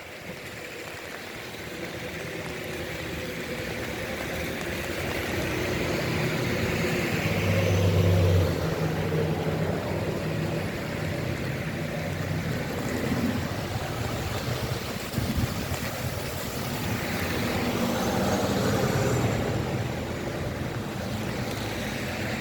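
A car driving past on a wet street, its engine and tyre hiss swelling to a peak about eight seconds in, over a steady hiss of rain. A second, smaller swell of vehicle noise comes later.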